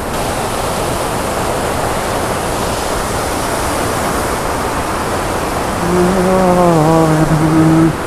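Fast mountain stream rushing over boulders in white water, a steady, loud rush of water. About six seconds in, a man's voice comes in over it with long drawn-out sounds.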